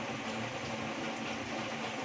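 Heavy rain falling steadily, an even rushing hiss with no breaks, with a faint steady low hum underneath.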